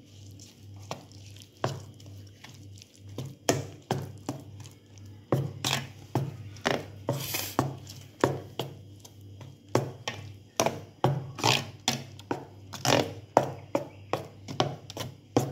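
A metal spoon stirring thick moong dal pakora batter in a stainless steel bowl, knocking and scraping against the bowl in irregular strokes that come faster in the second half.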